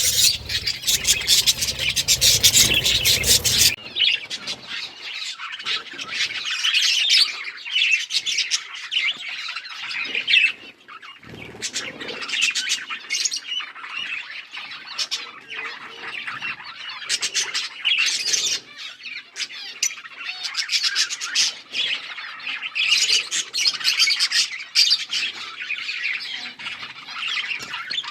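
Budgies chirping and squawking, many short calls overlapping without a break. The sound is louder for the first few seconds, then drops abruptly to a somewhat quieter chatter.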